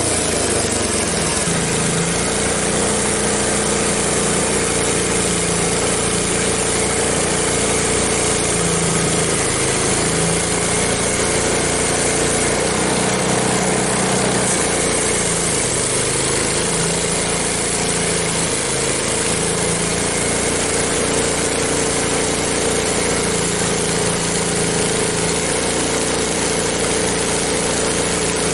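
Frontier OS23 portable bandsaw sawmill running steadily, its engine and band blade making a loud, even noise, with the engine note shifting slightly now and then.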